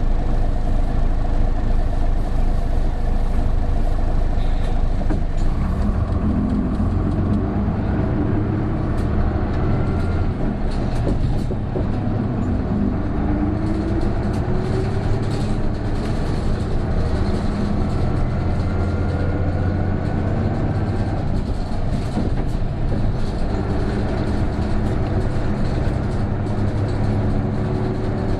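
Isuzu Erga route bus (PJ-KV234L1) turbo-diesel heard from inside the cabin, running under load with the engine note climbing, while the body and fittings rattle. A thin rising whine sits over the engine; it is this bus's characteristic odd noise, like an Aisin automatic gearbox's whine, which comes in once the turbo starts working from about 1300 rpm.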